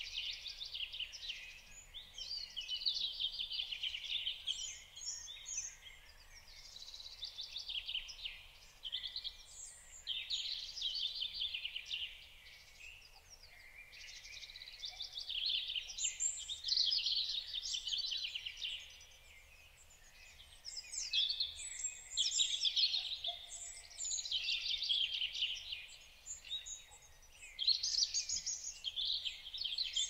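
Small songbirds singing: high-pitched, rapid twittering and trilling phrases of one to three seconds, coming one after another with short pauses between.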